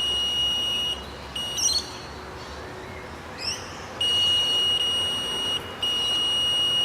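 Electronic carp bite alarm sounding a steady high-pitched tone four times, each lasting between half a second and well over a second. It signals line movement from a fish picking at the bait without running off with it.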